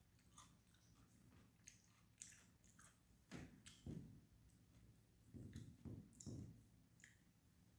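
Near silence with faint clicks and a few short, soft, muffled sounds of a person eating fried chicken with chopsticks.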